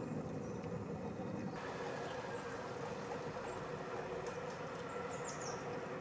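Steady outdoor background noise with a low constant hum. About five seconds in, a small bird gives three or four brief, high, quickly descending chirps in quick succession.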